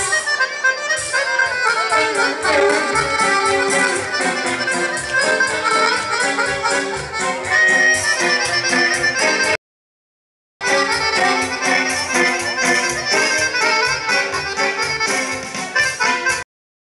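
Lively traditional dance music led by an accordion, with a quick, steady beat. The sound cuts out completely for about a second near the middle and again near the end.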